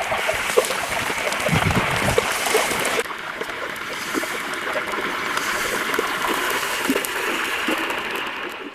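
Beef sizzling and crackling in hot oil in a pan: a steady frying hiss with many small spits and pops. The sound steps down slightly and abruptly about three seconds in.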